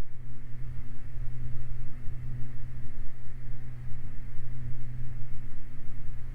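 Steady drone of a Beechcraft Baron's twin piston engines and propellers heard in the cockpit, at reduced approach power on short final.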